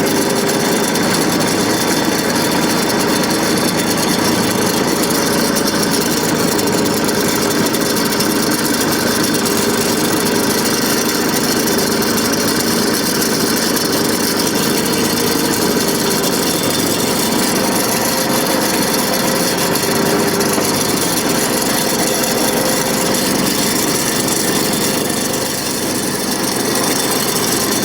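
Tractor engine running steadily while a blade levels and spreads loose dirt, its speed wavering slightly.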